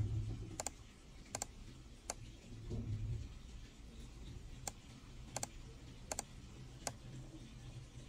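A computer mouse button being pressed over and over by an automatic clicker's metal arm: sharp clicks about every 0.7 seconds, with a pause of a couple of seconds partway through. A low hum runs underneath, with a dull thump near the start and another around three seconds in.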